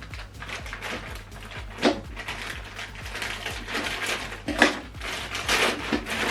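Packaging rustling and crinkling as accessories are unwrapped and handled, with sharper knocks about two seconds in and again near the middle, over a steady low hum.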